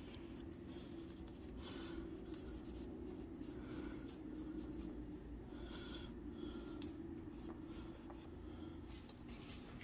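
Faint scratchy rubbing of a cloth worked over the plastic barrel and muzzle of a Nerf blaster, buffing on metallic weathering powder, over a steady low hum.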